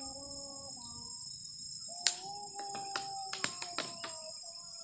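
Insects chirring steadily in two high, even tones. Several sharp clicks come in quick succession about two to four seconds in, over a lower held tone.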